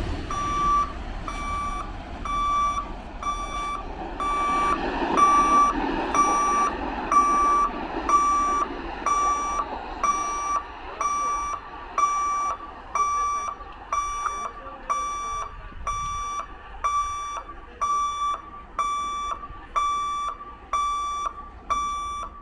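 Level crossing warning beeper sounding while the gate is closed: a steady electronic beep repeating evenly, a little under two a second. Under it, the rumble of a passing electric train fades away over the first several seconds.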